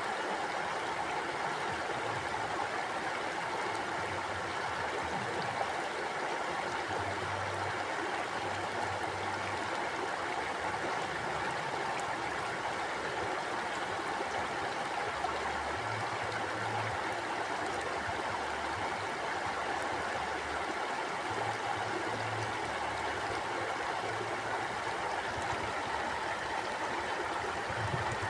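River water flowing and splashing over rocks in a steady, unbroken rush.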